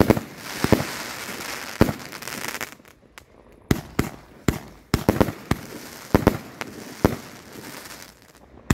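Fireworks going off: a few sharp bangs over a dense crackling hiss for the first couple of seconds, then a run of separate bangs about two a second.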